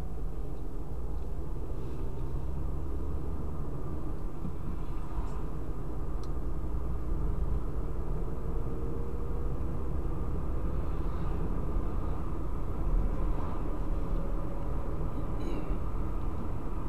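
A car driving at a steady speed, heard from inside the cabin: a steady low rumble of tyres on the road and engine drone, with a faint whine that shifts slowly in pitch.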